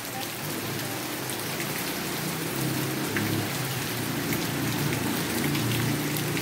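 Light, gentle rain falling steadily, an even hiss with scattered drops ticking close by.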